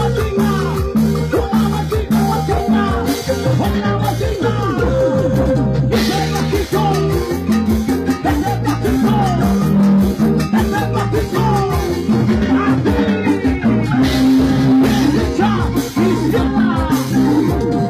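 Loud festive dance music with a steady, repeating bass beat and a gliding melody above it.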